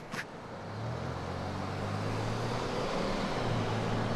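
A car driving, with engine drone and tyre noise on the road. The low engine note grows louder about a second in as the car pulls away, then holds steady.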